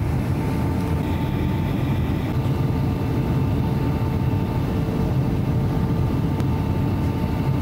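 Steady drone of an airliner's engines and rushing air heard from inside the passenger cabin, with a constant hum running over the low rumble.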